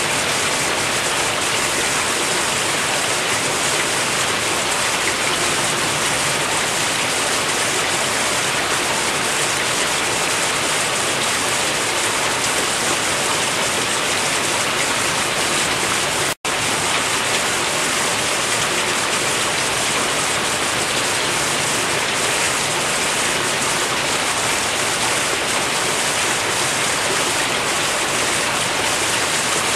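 Steady rush of water running into and through rows of fish hatchery tanks, with a momentary dropout about sixteen seconds in.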